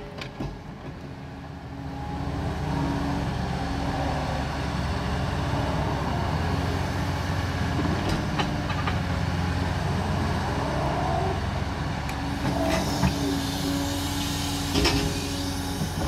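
Liebherr R 946 crawler excavator's diesel engine working steadily, louder from about two seconds in as the boom, swing and bucket move through demolition rubble. A held whine comes and goes twice, and a few sharp knocks of the steel bucket on broken brick sound in the second half.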